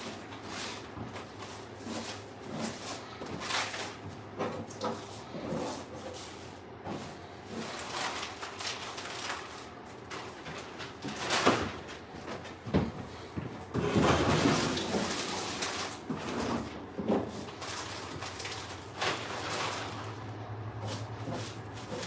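Irregular knocks, bumps and clatter of a person moving about and handling things. A sharp knock about 11 seconds in is the loudest, followed by a louder noisy stretch of a couple of seconds.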